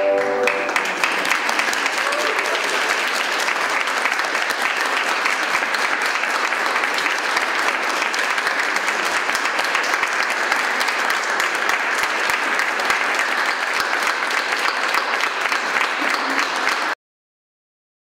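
A small audience applauds steadily, a dense crackle of many hands clapping. The last notes of the dance music die away in the first half-second, and the clapping cuts off abruptly near the end.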